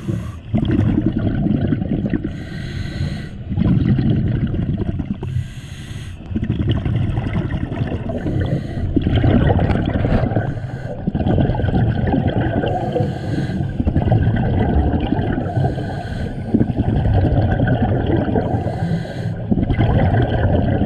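Scuba diver breathing through a regulator underwater: a short burst of breath and bubbles about every three seconds over a steady low rumble.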